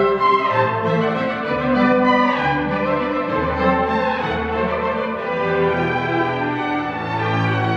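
Chamber string orchestra playing a light concert waltz, with violins carrying the tune over cellos and double basses, and a downward slide in the violins about two seconds in.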